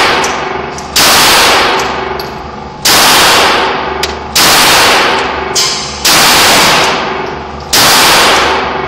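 Five pistol shots fired one after another, about one and a half to two seconds apart. Each is a sharp crack that fades away slowly, echoing off the hard walls of the indoor range.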